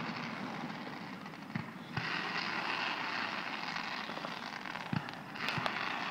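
Fireworks display heard from a distance: a few dull thumps of shells, the clearest about five seconds in, over a steady rushing noise.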